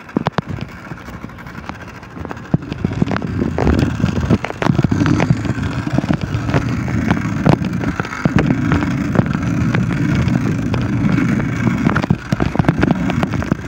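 Wind rumbling on a phone's microphone while riding a bicycle, with scattered knocks and rattles from the bike and the handheld phone; the rumble gets louder about four seconds in.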